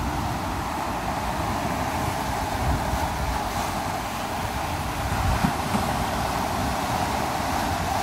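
Small sea waves washing up on the shore, a steady rush of surf, with wind buffeting the microphone in uneven low gusts.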